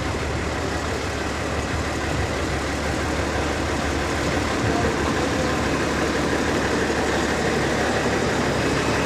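Heavy diesel machinery engine running steadily at a low idle-like speed, a continuous low hum with mechanical noise over it, from the crane or excavator working the lift.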